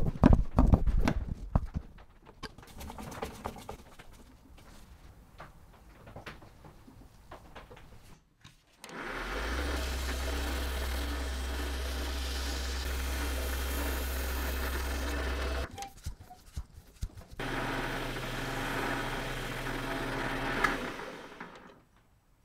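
A screwdriver clicks and scrapes as it turns a small slotted screw with a brass cup washer. About nine seconds in, a small Paulimot PM190-V bench lathe starts and runs steadily for about six seconds with a low hum while a spinning round knob is sanded with abrasive paper. It stops, then runs again for about three seconds.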